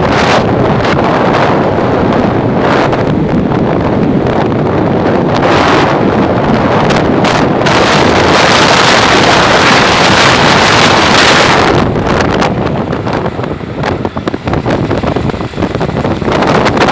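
Strong storm wind buffeting the microphone, a loud, continuous rushing that peaks about two-thirds of the way through and then comes in uneven gusts.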